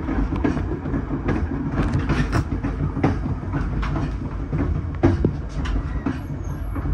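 Passenger train car's wheels clicking over the joints of jointed (stick) rail, irregular clicks over the steady rumble of the moving train, heard from the car's rear vestibule.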